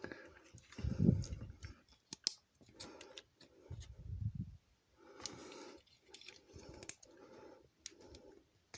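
Plastic model kit parts being handled and pried apart by hand: scattered small clicks and scrapes of hard plastic, with a couple of dull bumps about one and four seconds in.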